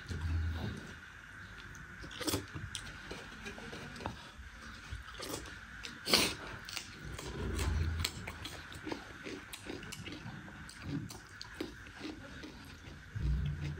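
Close-up eating sounds: wet chewing, lip smacks and mouth clicks from someone eating with his fingers, with a few low thumps near the start, about halfway through and near the end.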